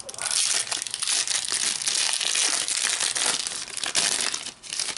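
A trading-card pack wrapper crinkling as it is torn and pulled open by hand. The dense crackle fades away near the end.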